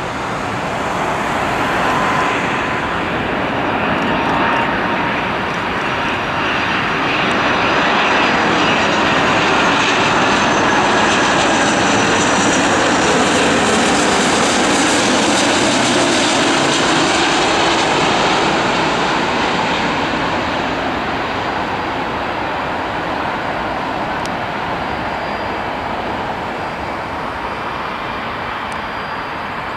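Airbus A330-300 jet airliner on final approach with its Rolls-Royce Trent 700 turbofans at low power, passing close overhead. The engine roar builds to its loudest about halfway, then fades as the jet moves off toward the runway, with a high whine sliding down in pitch as it passes.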